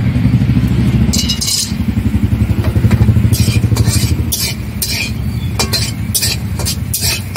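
Metal spatula clinking and scraping against a steel kadai as bori (lentil dumplings) fry in hot oil, in several short bursts. Under it runs a steady low rumble, the loudest thing throughout.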